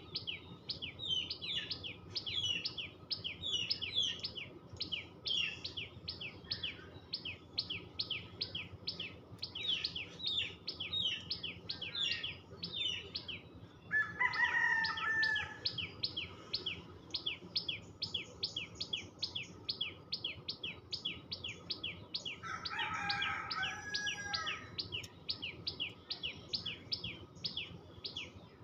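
Common tailorbird calling: a rapid, steady string of sharp high chirps, about three a second. A rooster crows twice over it, midway and again later on; the first crow is the loudest sound.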